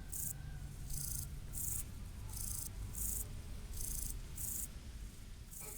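Crickets chirping in evenly spaced pulses, roughly three every two seconds, over a low background rumble.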